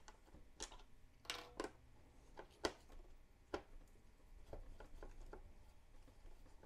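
A handful of faint, scattered clicks and ticks from a screwdriver backing out the screws from the back of a Fluke 179 multimeter's plastic case.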